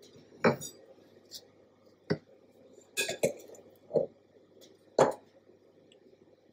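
Metal spatula knocking and scraping against a glass mixing bowl and glass cake plate while scooping and spreading chocolate frosting: about half a dozen light knocks and clinks.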